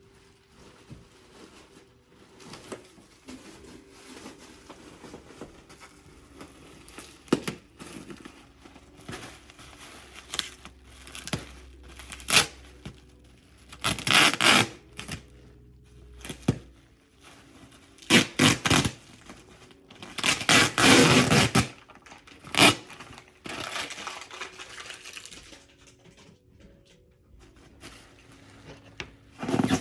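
Packing materials being handled by hand: rustling and scraping, broken by several louder tearing strokes. The longest and loudest of these comes about two-thirds of the way through.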